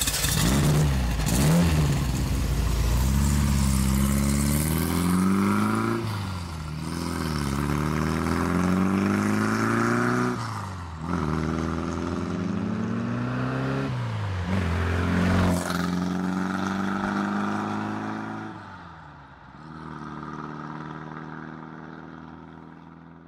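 Vehicle engine sound for a scale RC Land Rover pulling away through the gears: the revs climb and drop back at each of about four gear changes. It fades as the truck drives off into the distance near the end.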